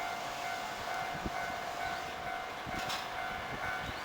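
Japanese railway level-crossing warning bell ringing steadily, a repeating electronic tone, over low rumbling and a few dull thumps.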